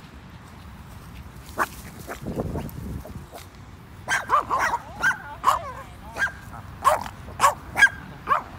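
A small dog, a papillon, barking and yipping: one sharp bark early on, then about four seconds in a rapid run of about ten high-pitched yips.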